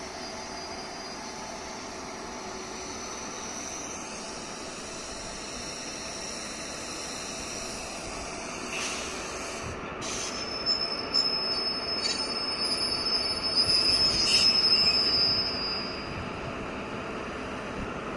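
Electric locomotive running light on the rails, its steel wheels rolling with a steady rumble; about ten seconds in a loud high-pitched wheel squeal sets in, peaks a few seconds later and fades out near the end. This is the locomotive approaching a BOXN wagon to couple up.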